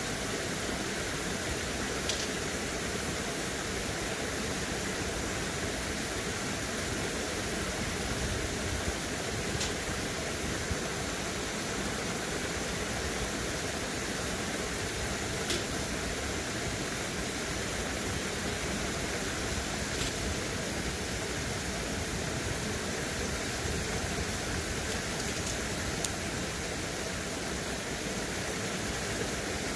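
Steady rush of flowing water from a waterfall and shallow stream, with a handful of faint clicks a few seconds apart.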